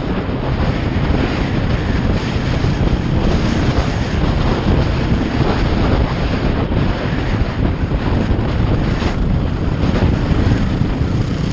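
KTM enduro motorcycle running under way along a gravel track, mixed with heavy wind buffeting on the camera microphone, a steady dense rumble throughout.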